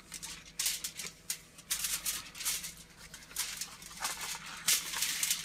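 Banana leaf and the aluminium foil beneath it rustling and crinkling under the hands as a fish packet is folded, in a string of irregular crinkles.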